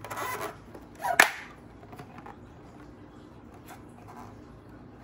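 A hollow plastic doll crib being handled: a short scrape, then one sharp plastic clack about a second in, followed by a few faint ticks.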